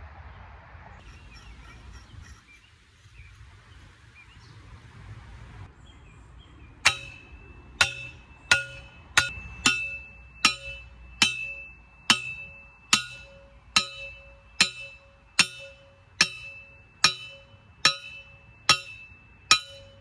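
Manual post driver striking the steel drive cap on a 1¼-inch sandpoint well pipe, driving the well point's tip into soft ground. The strikes start about seven seconds in: about seventeen ringing metal clangs, roughly one every 0.8 seconds.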